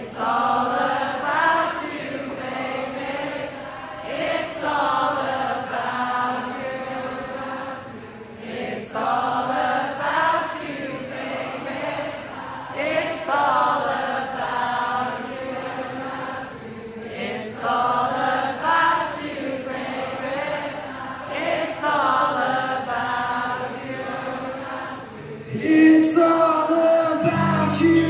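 Large concert crowd singing along unaccompanied, in repeated phrases a few seconds long. Near the end the band's guitars and bass come back in under the singing.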